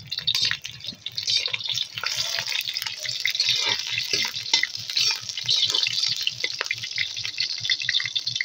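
Onion pieces frying in hot oil in an aluminium wok: a steady sizzle with many small crackling pops.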